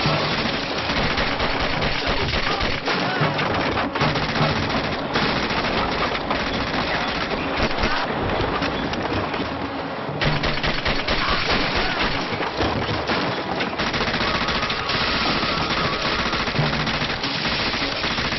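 Automatic gunfire from submachine guns, firing in long, almost unbroken bursts, with music underneath.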